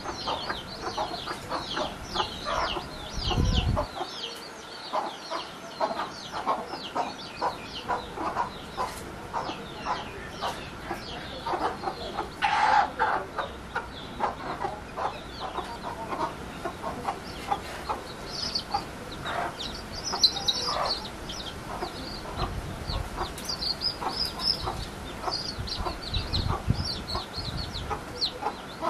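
Newly hatched chicks peeping nonstop in short, high, falling chirps while the mother hen clucks softly and repeatedly. About twelve seconds in, one longer, louder call stands out, and a low thump comes at about three and a half seconds.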